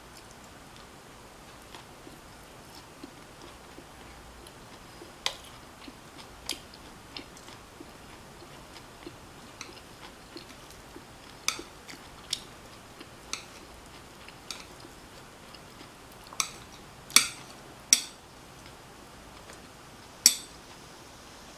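Eating crispy Korean chive pancake: quiet chewing with scattered sharp clicks, several much louder clicks in the second half.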